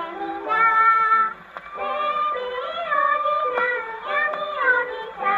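A girl singing a Japanese children's song with accompaniment, from a 1929 Columbia 78 rpm record played on a Columbia Model 112 portable gramophone. The sound has no treble above about 4 kHz, and a few faint surface clicks come through.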